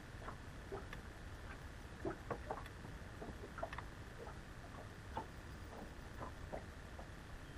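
Small waves lapping against a fishing boat's hull: faint, irregular plinks and ticks, several a second and varied in pitch, over a low steady rumble.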